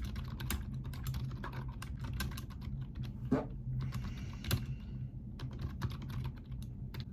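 Computer keyboard being typed on: a quick, irregular run of key clicks over a low steady hum.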